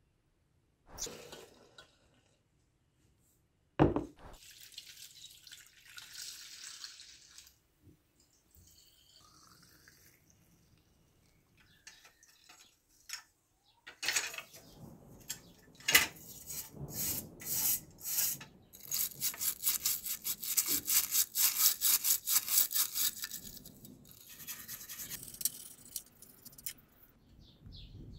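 Small brush scrubbing rusty metal toy-pistol parts in a glass tray of soapy water, in quick back-and-forth strokes that are fastest and loudest in the second half, about five a second. Earlier there is one sharp knock and a short hiss of liquid soap being poured.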